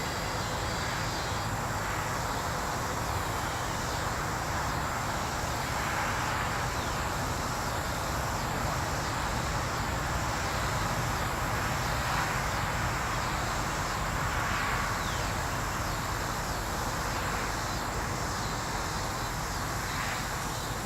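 Steady outdoor chorus of insects trilling over a constant background hiss, with a few gentle swells in level.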